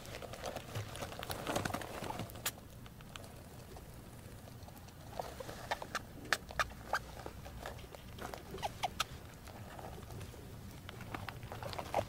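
A group of rats feeding in a cage: irregular crunching and clicking as they gnaw, with short squeaks mixed in.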